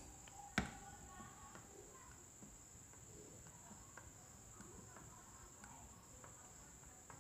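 Near silence: room tone with a faint steady high-pitched whine, and a single short click about half a second in.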